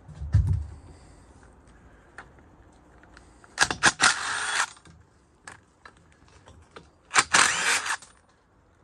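Cordless power driver running in two bursts of about a second each, a few seconds apart, backing long through-bolts out of a large electric motor's end bell. A short thump near the start and a few small clicks of tool handling between the bursts.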